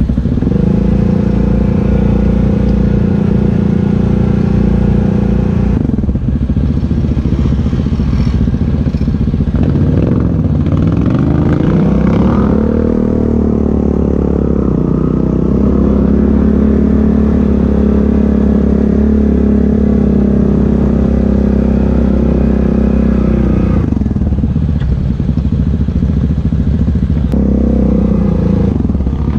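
ATV engine running steadily while riding a dirt trail. Its pitch drops after about six seconds, dips and climbs back up a few seconds later, holds, then drops again and picks back up near the end.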